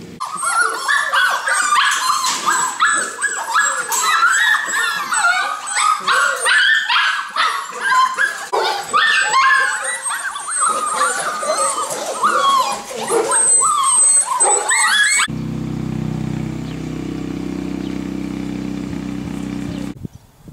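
A crowded pen of golden retriever puppies yelping, whining and yipping all at once, many overlapping high cries. About fifteen seconds in the yelping cuts off and a steady low hum takes over.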